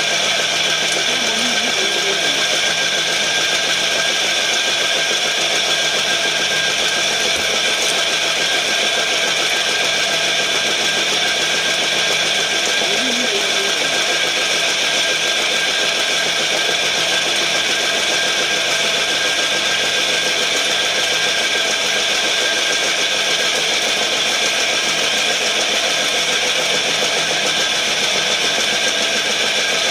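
Charcoal briquette extruder driven by a 5 hp electric motor, running steadily as it pushes out briquette logs: an even, unchanging machine drone with several high steady tones.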